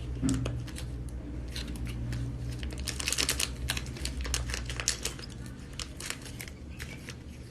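Rapid irregular clicks and crinkling from plastic food containers and utensils being handled, densest about three seconds in, over a steady low hum.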